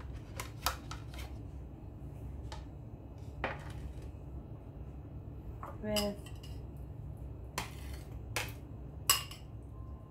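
Plates, a ceramic bowl and a metal spoon clinking and scraping as sautéed mushrooms are spooned out of the bowl onto a plate: scattered clinks and knocks, the sharpest near the end, over a steady low hum.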